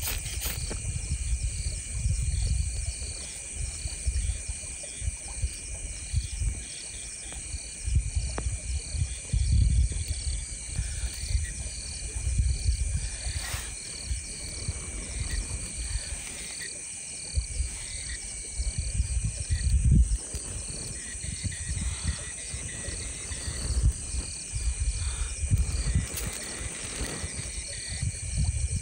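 Steady chorus of insects chirping with a fine pulsing trill, over low uneven rumbling and a few sharp knocks or scrapes.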